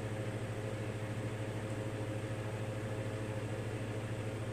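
Steady low hum with a faint hiss underneath, unchanging throughout: background room noise.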